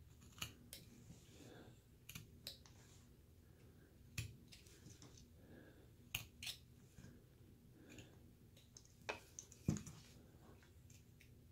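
Faint, scattered clicks and snicks of a thin carving knife making small slicing cuts in basswood, about a dozen in all. Near the end there is one louder, duller knock as the carving is handled and turned.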